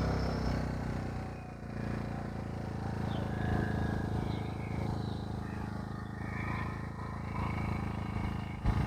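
AIVOLT 1600 W inverter generator's 60 cc four-stroke overhead-valve engine running steadily at low load, a soft even hum, with birds chirping faintly. Background music fades out in the first second or so.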